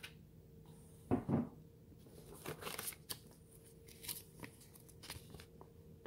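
Paper cards and packaging being handled: a dull bump about a second in, then scattered short rustles and flicks of paper as the cards are taken out and unfolded.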